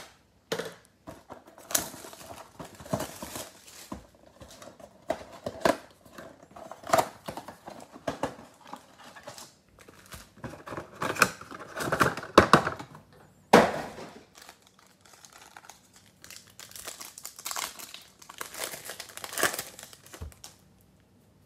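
Paper and foil packaging crinkling and tearing as a sealed mega box of trading cards is opened and its packs are pulled out, with one sharp rip about halfway through. Near the end a foil card pack crinkles as it is torn open.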